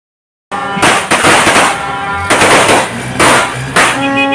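Firecrackers going off on the ground in a string of loud sharp bangs and crackling bursts, starting about half a second in, over music with steady held tones.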